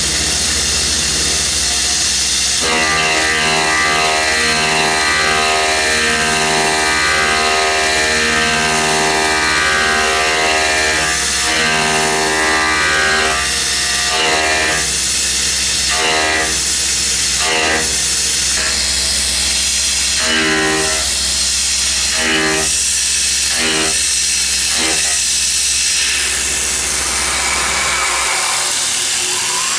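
Tormach CNC mill cutting 6061 aluminum with an end mill, under a steady hiss of air blast. The cut rings with several steady whining tones that shift and pulse as the tool engages. In the second half come a number of short, louder bursts.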